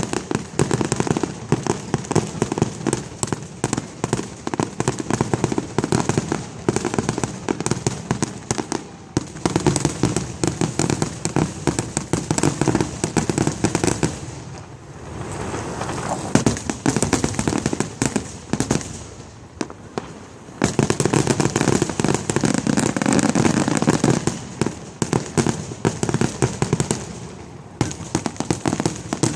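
Fireworks going off in a dense, continuous barrage of bangs and crackling, easing off briefly twice around the middle before building again.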